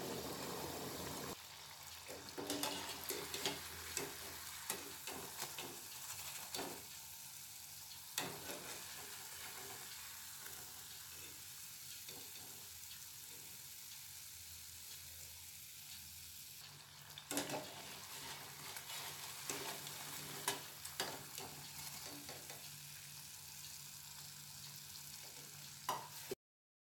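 Nimki pastries deep-frying in hot oil: a steady sizzle with small pops, and a wire skimmer clicking against the metal pot as the pieces are stirred and lifted out. The sound cuts off suddenly near the end.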